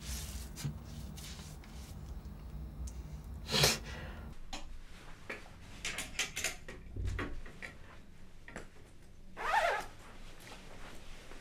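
Clothes hangers clicking and clothes rustling as garments are taken from a wardrobe, with a louder scrape of a hanger near the end. A low room hum runs under the first few seconds.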